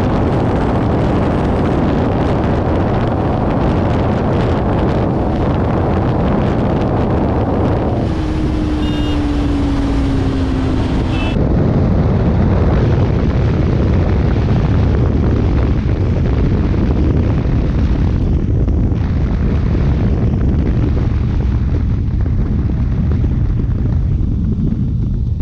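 Single-cylinder motorcycles running flat out near top speed, about 150 km/h, with heavy wind rush on the microphone over the engine. The first part is a KTM Duke 250 and the rest a BS3 Bajaj Pulsar RS 200; the sound changes abruptly where one gives way to the other.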